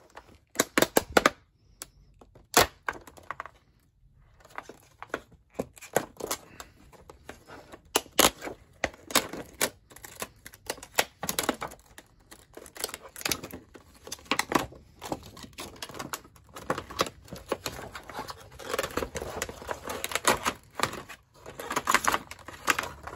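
Clear plastic clamshell packaging being pulled and torn open by hand along its perforations: irregular sharp crackles, clicks and snaps of stiff plastic, with rustling handling in between and denser crackling near the end.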